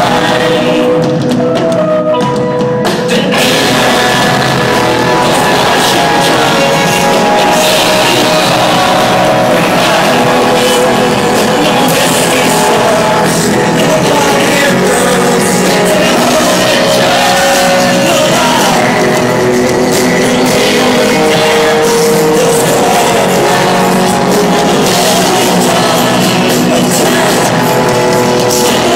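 Live rock band playing loudly, with a drum kit and electric guitars and some singing; the drums and full band come in hard about three seconds in. Heard through a phone's microphone from the audience, rough and crowded-sounding.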